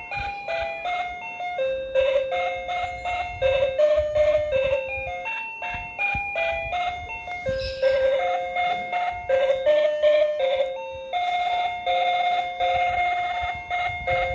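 Battery-operated cow-shaped toy piano playing a simple electronic melody of short beeping notes, changing pitch every fraction of a second, with one longer held note about two thirds of the way in.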